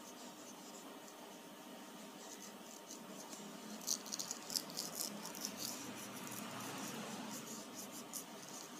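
Quick, scratchy strokes of colouring on paper, starting about 4 seconds in and trailing off near the end, a few strokes louder than the rest.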